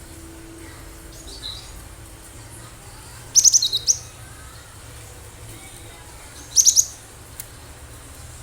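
Gelatik batu (cinereous tit) calling in two quick bursts of sharp, high chirping notes about three seconds apart, with a faint note shortly before the first burst.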